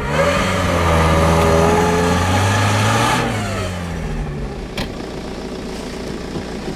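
A car engine revs up over about a second, holds high for about two seconds, then drops back toward idle. There is one sharp knock a little after the engine settles.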